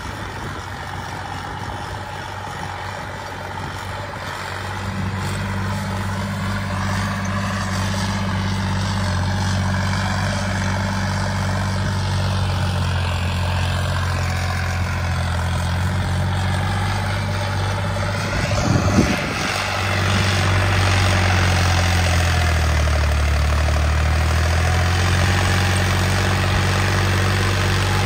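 Turbocharged John Deere tractor diesel engine running steadily, louder from about five seconds in. About two-thirds through there is a brief clatter, then the engine runs louder still, its note dropping lower for a couple of seconds as it comes under load.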